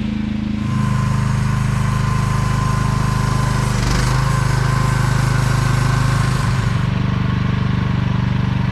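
Small engine of an AGT QH12R 1-ton mini excavator running steadily. From under a second in until about seven seconds a thin steady whine and a hiss ride over it as the engine note shifts, typical of the hydraulics working under load.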